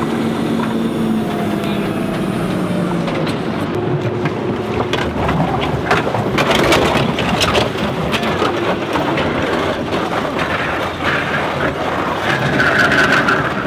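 A waterlogged Mercury Cougar being dragged up a concrete boat ramp by a tow truck, its wheels and body scraping and crunching over the concrete, with the tow truck's engine running. The crunching and scraping grow thicker after the first few seconds.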